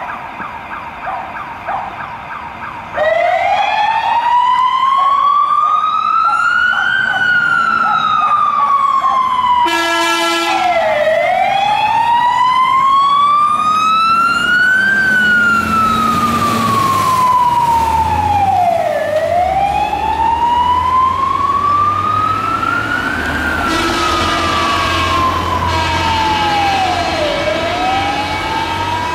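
Fire engine siren switching on about three seconds in and sounding a slow wail that rises and falls about every eight seconds. A short horn blast comes about ten seconds in, and a truck's diesel engine rumbles as the fire engine passes.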